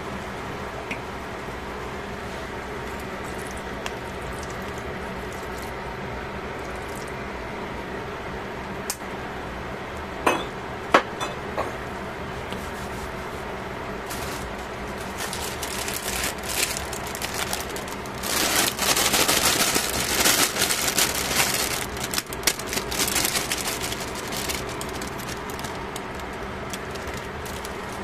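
Food going into a stainless steel pot over a steady background hum. Two sharp clinks come about ten seconds in. Then, from about fifteen seconds, some ten seconds of rustling and crackling as shredded cabbage, carrot and green pepper are tipped in on top of the simmering pork.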